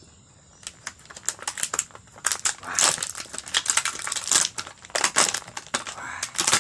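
Close-up chewing of charred grilled toman (giant snakehead) fish: a dense run of crackly crunches starting under a second in.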